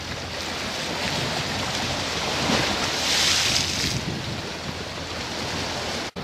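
Wind blowing across the microphone over the sound of sea water washing, a steady rushing noise with a louder hissing swell about three seconds in. The sound cuts out for an instant near the end.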